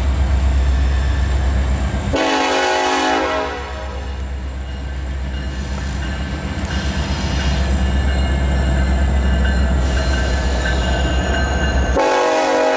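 A Norfolk Southern SD70ACe diesel freight locomotive passes with its EMD 16-cylinder engine rumbling under load. Its horn gives one blast of about a second and a half about two seconds in, and a second blast begins near the end.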